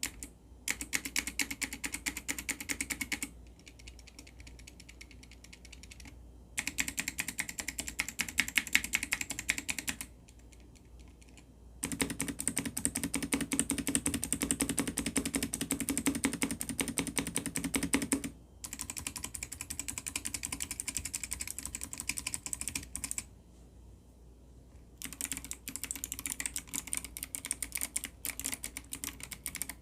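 Mechanical keyboard with clicky Kailh Box White switches being typed on fast, in five bursts of rapid keystrokes with short pauses between them.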